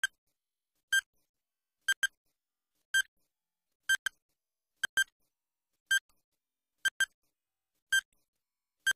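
Quiz countdown timer sound effect: a short, high electronic beep once a second, a few of them doubled, ticking off the seconds left to answer.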